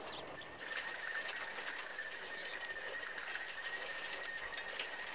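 Bicycle rattling and ticking as it is ridden over paving, with a steady high tone that comes in about half a second in.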